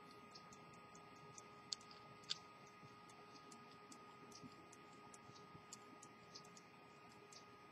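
Faint light clicks and ticks from an 18th-century verge pocket watch as a key is worked on its hand-setting square, with two slightly sharper clicks about two seconds in, over a faint steady hum.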